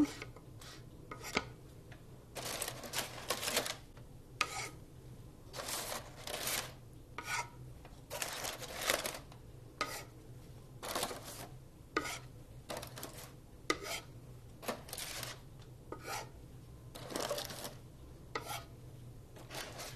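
Wooden spatula scraping across an electric griddle's metal surface as it slides under pancakes to lift them, in repeated short strokes every second or so, with paper rustling as the pancakes are laid into a parchment-lined pan.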